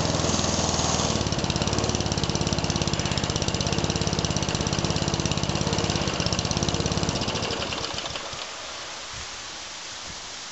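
Mountfield RV150 four-stroke lawnmower engine running steadily, then shut off about seven seconds in and running down to a stop over about a second, leaving only quiet outdoor noise.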